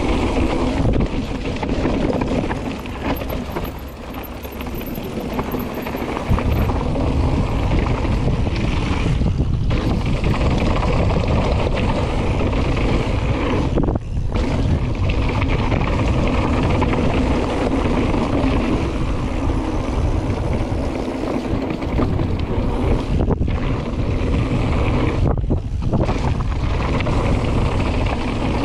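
Mountain bike descending a rough downhill trail, heard from a camera on the rider or bike: steady wind rush on the microphone over tyre rumble and rattle. The low rumble grows heavier about six seconds in, and the noise dips briefly a few times.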